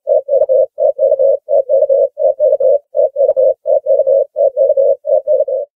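Dove cooing: short notes on one low pitch, given in quick groups of three, about eight groups in a row.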